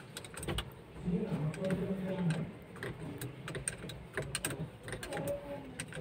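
Light, irregular metallic clicks and taps of hand tools and parts on an Isuzu Elf truck's bare steering column as its screws are worked. Muffled voices sound twice in the background.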